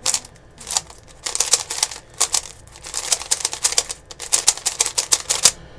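Rapid plastic clacking of a YJ type-D 3x3 speed cube as its layers are turned in quick runs, the clicks coming in bursts of several with short pauses between.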